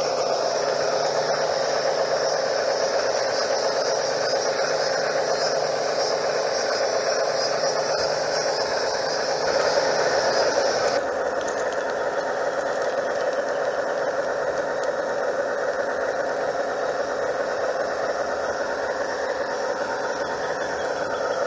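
Garden-scale model train running, heard from a camera riding on the train: a steady rattle and hum of wheels on rail joints and the running gear. About eleven seconds in, the high hiss over it drops away abruptly.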